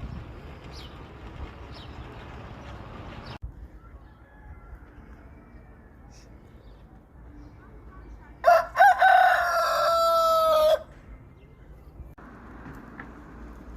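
A rooster crowing once, about halfway through: two short notes, then a long held note lasting about two seconds.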